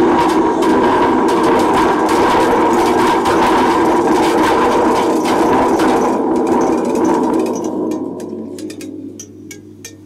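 Dense clattering and rattling over a steady drone, fading out a couple of seconds before the end, followed by a few separate sharp ticks.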